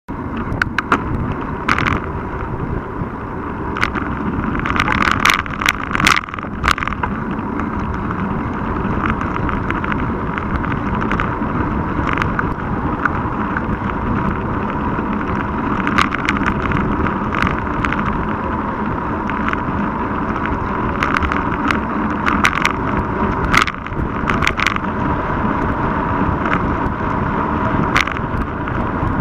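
Wind and road rumble picked up by a camera mounted on a mountain bike's handlebars while riding on a paved road, with frequent sharp rattles and knocks as the bike and mount jolt over bumps.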